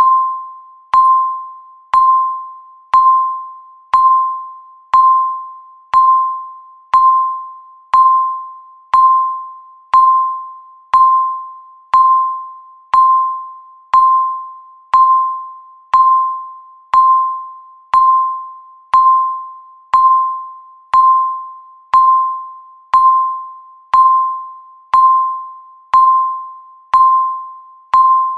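Countdown timer's electronic beep sounding once every second: a single mid-pitched tone that starts sharply and fades away before the next one.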